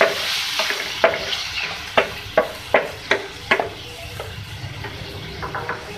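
Wooden spatula stirring minced beef in a hot metal frying pan, knocking and scraping against the pan about six times in quick succession, over a frying sizzle that dies down in the first couple of seconds.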